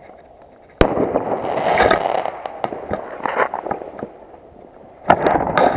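Fireworks going off: a sharp bang about a second in, followed by about a second and a half of crackling hiss and scattered pops. Another sharp crack with a short burst near the end.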